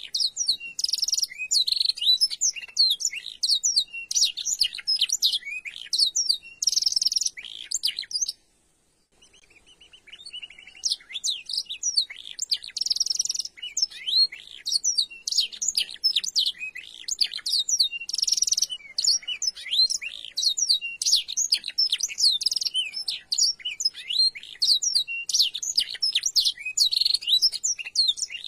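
Domestic canary singing a fast, high-pitched, almost continuous song of chirps and trills, filled with black-throated canary phrases. It breaks off for about a second and a half roughly a third of the way in, then carries on.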